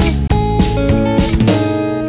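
Background music led by plucked guitar, its low bass dropping out about a second and a half in.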